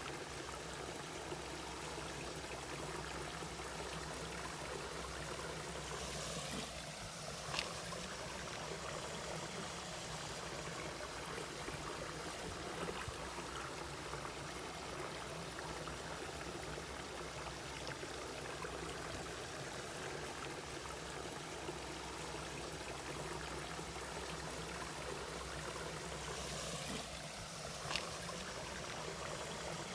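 A mountain valley stream running steadily over rocks, with two brief clicks about twenty seconds apart.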